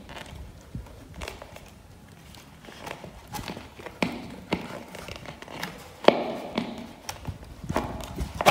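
Light, irregular clicks and knocks of a plastic ceiling-fan cover being handled and fitted down the downrod onto the motor housing, with one louder knock at the very end.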